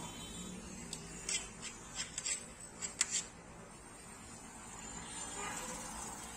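A run of short, sharp crackles and taps during the first three seconds as crisp puri shells are broken open and stuffed by hand, over a steady street background.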